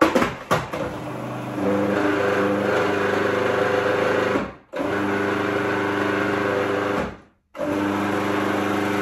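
Electric food processor running in three bursts, with two short stops between them, blending a stiff ginger cookie dough with coconut oil. Its motor hum is steady in pitch.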